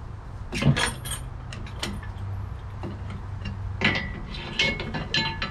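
Hand tools clinking and knocking against steel while motor mount bolts are tightened: a few scattered sharp metallic clinks, some ringing briefly, over a low steady hum.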